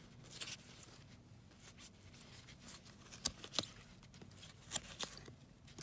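Baseball cards being thumbed through by hand, quiet rustling and sliding of card stock with a few brief sharp flicks of card edges.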